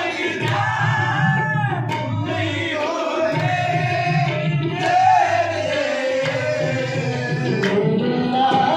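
Qawwali singing at a Sufi sama: voices singing a devotional melody over tabla accompaniment.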